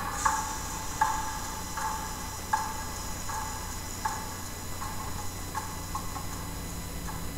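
Regular light ticking strikes, about four every three seconds, each with a short ring, over a steady hum.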